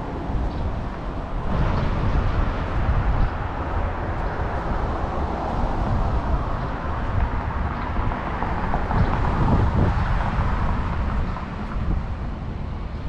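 Road traffic on a city street: cars driving past close by, their tyre and engine noise swelling and fading, loudest about two seconds in and again around nine seconds in.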